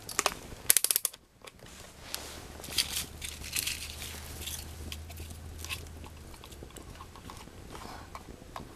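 Rotary selector dial of a Craftsman digital multimeter clicked through its detents by hand, a quick run of sharp clicks about a second in, followed by scattered faint crackles and small handling knocks over a low steady hum.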